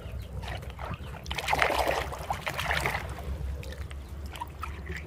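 Water sloshing and splashing in a plastic bucket as a hand scrubs a muddy plastic toy hammer under the surface, in uneven surges that are loudest in the middle.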